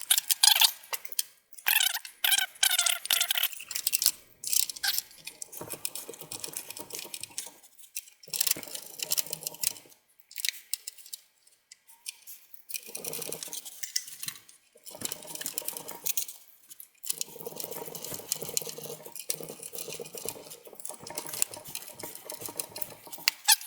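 Replacement rear exhaust fan being fitted into a steel desktop tower case: sharp clicks and clatter of plastic and metal in the first few seconds, then repeated stretches of scraping and rubbing as the fan is worked into place.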